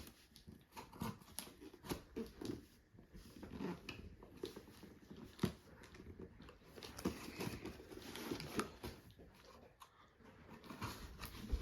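A cardboard box being cut open with a knife: irregular scrapes, taps and rustles of the blade and cardboard.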